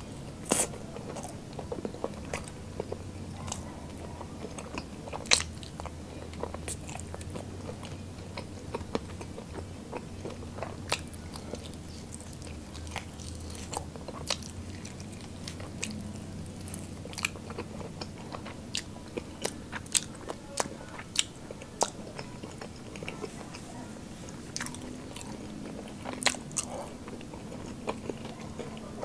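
A person biting and chewing spicy buffalo chicken wings: irregular sharp crunches and smacks of the mouth, some louder than others, scattered throughout.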